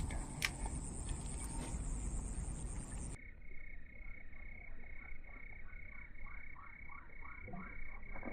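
Frogs croaking in a regular, rapidly repeating series of calls, starting abruptly about three seconds in after a few seconds of steady outdoor noise.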